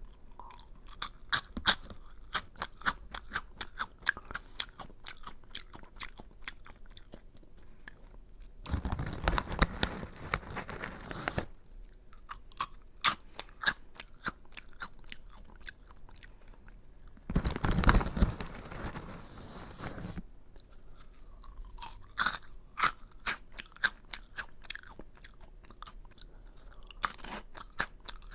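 Close-up crunching and chewing of Aji Curry, a hard, crunchy curry-flavoured snack, as rapid sharp crunches. Twice, about a third and about two-thirds of the way through, the crunching gives way to a couple of seconds of louder noise.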